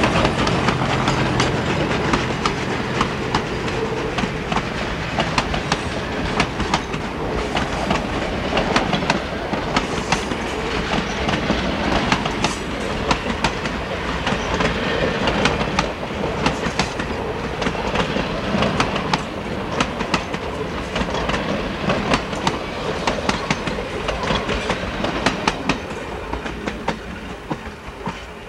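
Passenger cars of a steam train rolling past, their wheels clattering over the rail joints in a continuous, uneven clickety-clack. The sound fades away near the end as the last car recedes.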